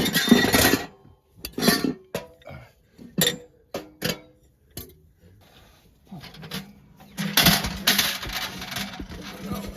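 Metal gear being handled: a series of separate clinks and knocks, like pots and metal pieces set down and moved, followed by a few seconds of denser rustling and clatter.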